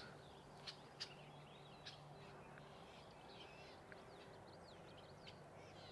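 Faint wild birds calling: a scatter of short chirps and quick gliding notes. There are a few soft clicks in the first two seconds.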